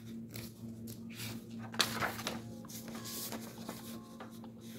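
Soft rustles and scrapes of a sheet of paper being moved and handled on a desk, loudest about two seconds in, over a faint steady hum.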